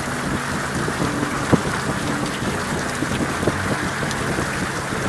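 Heavy rain pelting a camera microphone on a moving Honda Goldwing GL1800 motorcycle, a dense steady hiss full of small raindrop ticks, with the motorcycle's engine humming steadily underneath. One sharper drop hits about a second and a half in.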